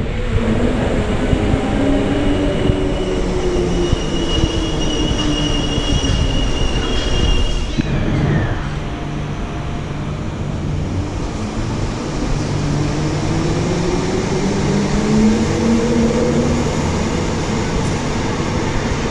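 Transperth electric trains moving through a station. A motor whine falls in pitch through the first half as a train slows, and a thin high wheel squeal sounds for a few seconds near the middle. In the second half the whine rises in pitch again as a train gets under way.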